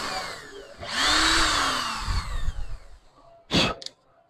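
Corded electric drill with a hole saw enlarging a hole in the speaker box's panel: the motor winds down, is triggered again about a second in, runs for about a second and a half, then winds down with a falling pitch. A short sharp knock near the end.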